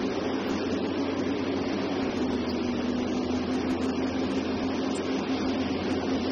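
Diesel engine of a Liebherr R 984C crawler excavator running steadily under load as the machine digs, a constant drone with a held hum tone.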